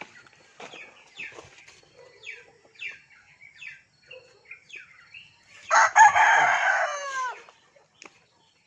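A rooster crows once, loud, about six seconds in; the crow lasts about a second and a half and falls away at the end. Before it comes a run of short, falling, high-pitched calls, about two a second.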